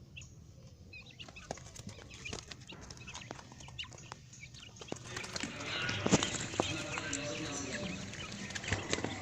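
Quail moving about and calling: scattered clicks and short chirps, growing busier and louder about halfway through.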